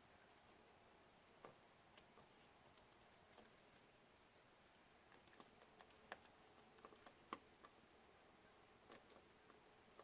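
Faint, irregular small clicks and ticks of a small screwdriver and tiny screws being handled as the black screws are driven back into a drone camera's housing, over near silence.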